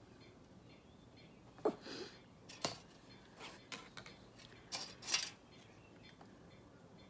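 Cut pieces of thin aluminum baking sheet and a clear ruler being handled on a tabletop: a handful of short crinkles and taps, starting about a second and a half in and ending a little after five seconds.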